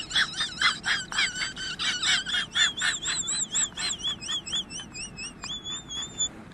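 Chicken giving rapid, high-pitched calls that waver up and down in pitch, several a second, growing fainter and stopping near the end.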